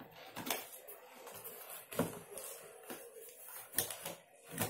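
Cardboard packaging rustling and scraping as a plastic remote-control transmitter is worked out of its cardboard insert, with a few sharp knocks and clatters of plastic against cardboard, the loudest about two seconds in and near the end.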